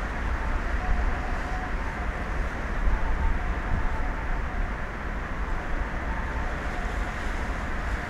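Wind buffeting an exposed microphone: a steady rush with a fluttering low rumble and no breaks.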